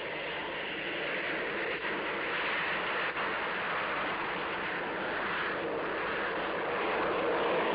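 Jet engines of Harrier jump jets in formation flight: a steady rushing jet roar, growing slightly louder toward the end.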